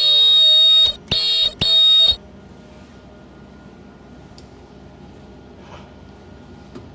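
Ultrasonic plastic welder's horn singing during a horn test as the generator's test button is pressed: three loud, shrill, steady-pitched bursts in the first two seconds, the first about a second long and two shorter ones.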